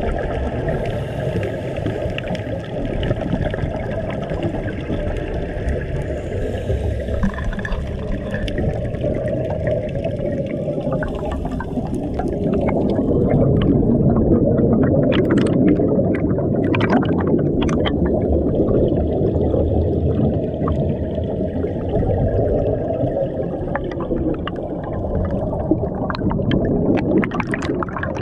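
Underwater sound on a scuba dive: a steady, muffled rush of water with a diver's exhaled regulator bubbles gurgling. It grows louder for several seconds in the middle, with scattered sharp clicks then and again near the end.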